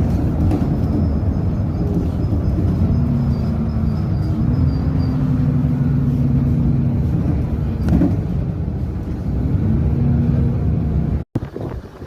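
Boat motor running steadily, a loud low rumble with a slightly wavering hum, cutting off abruptly near the end.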